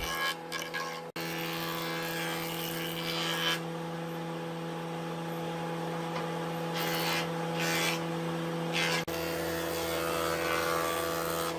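Workshop power tool motor running with a steady hum, with several short hissing bursts near the end. The sound changes abruptly about a second in and again near the end.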